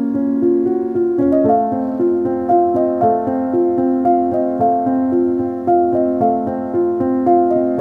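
Background piano music: a run of held notes changing at an even pace.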